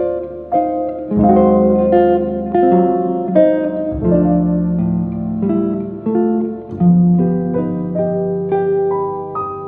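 Background music: gentle plucked-string melody, guitar or harp-like, over sustained low bass notes.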